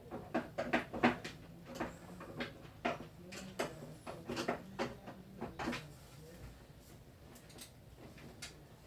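Irregular clicks and knocks of plastic parts being handled on an electronic keyboard under repair, about a dozen in quick succession, then a few scattered ones near the end.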